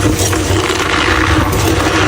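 Blocks of gym chalk being crushed by hand: a continuous dense crunching crackle of crumbling chalk, over a steady low hum.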